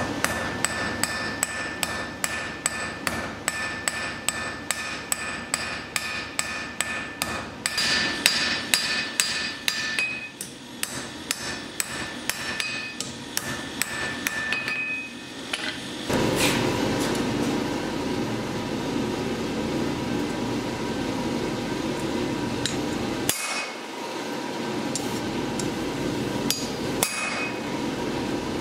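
Blacksmith's hammer striking steel on an anvil, about two ringing blows a second, then the hammering stops about halfway through and a steady rushing hum takes over, with a few single knocks.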